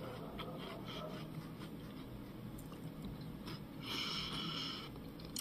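A quiet room with faint small mouth clicks from a person. About four seconds in there is one breath of about a second.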